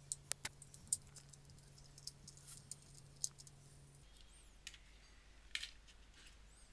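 Plastic snap-fit case of a small handheld pouch sealer being pried open: scattered sharp plastic clicks, several in the first second, then short scrapes as the catches give.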